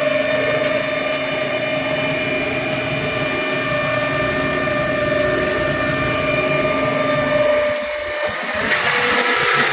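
Volumetric concrete mixer truck running, with a steady mechanical whine from its mixing auger drive. Near the end the whine drops out and a hissing, rushing noise takes over.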